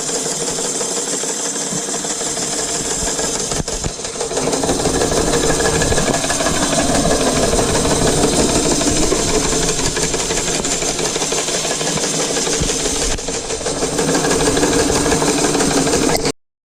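Electric-converted sickle bar mower running, its cutter bar clattering steadily. It gets louder about four seconds in and cuts off suddenly near the end.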